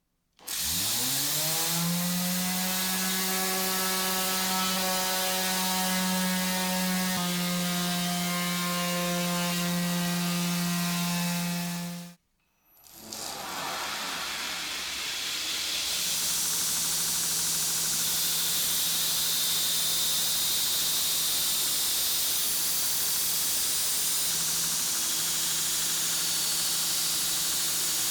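An electric power tool's motor starts and spins up within about a second to a steady whine, then runs evenly and stops abruptly about twelve seconds in. After a short gap a similar motor runs again with a strong hiss over its hum, as of an abrasive working the steel.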